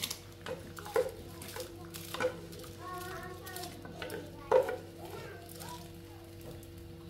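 Wooden spoon scraping rice out of a metal pan into a pot of boiling water, knocking against the pan's rim several times, loudest about four and a half seconds in, over a steady low hum.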